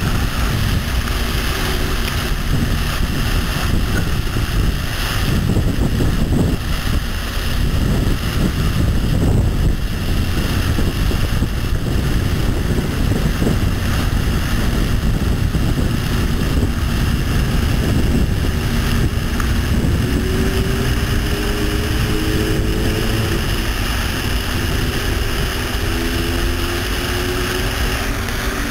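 Water fountain splashing: a steady, loud rush of falling water with no pauses. A faint wavering tone comes and goes in the second half.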